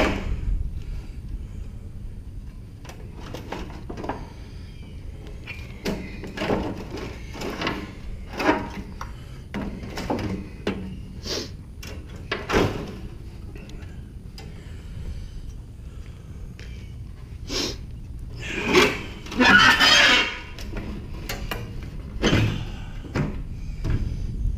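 Sheet-metal panels and the copper evaporator coil of an air handler being handled during disassembly: scattered clanks, taps and short scrapes of metal. A longer, louder scraping rustle comes about three-quarters of the way through.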